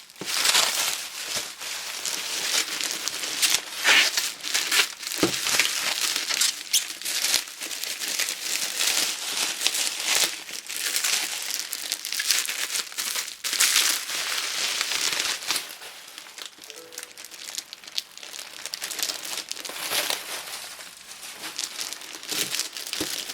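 Packaging of a boxed action figure crinkling and rustling as it is handled, with many small crackles and clicks. It gets somewhat quieter about two-thirds of the way through.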